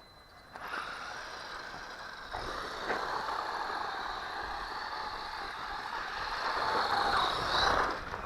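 1/12-scale 4WD hobby-grade RC car's electric motor and gears whining under throttle as it drives. The whine starts about half a second in, gets louder toward the end and stops just before the end.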